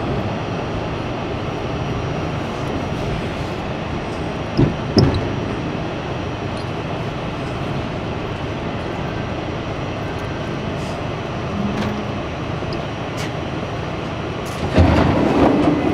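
Interior running noise of an R68 subway car slowing through a station to a stop, a steady rumble from the wheels on the rails. Two sharp knocks come close together about four and a half seconds in, and a louder burst of sound near the end.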